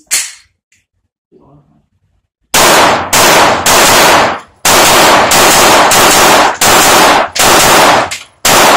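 Glock 19X 9mm pistol: the slide snaps forward on the slide release, then after a short pause it fires a string of about ten shots, roughly two a second, some in quick pairs (double taps), each shot with a short echo.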